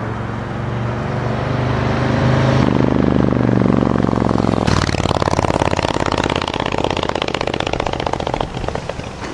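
A 2019 Harley-Davidson Road King's Milwaukee-Eight V-twin, fitted with Vance & Hines true dual headers and 4.5-inch Titan mufflers, riding past. The engine note grows louder as it approaches. About halfway through it changes to a rapid pulsing exhaust sound as the rider closes the throttle and decelerates past, then fades away.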